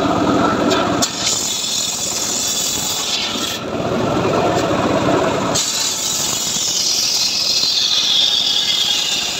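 A homemade circular saw bench cutting rain tree (trembesi) wood. The blade runs loud and steady and bites into the timber twice, at the start and again from about 3.5 to 5.5 s in. Near the end a high whine slides down in pitch.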